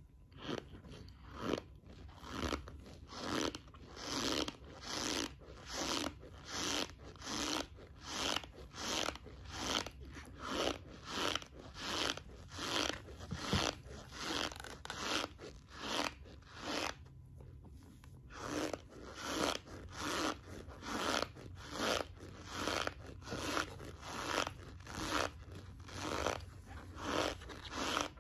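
Mouthful of dry cornstarch being chewed, crunching in a steady rhythm of about two chews a second, with a brief pause a little past halfway.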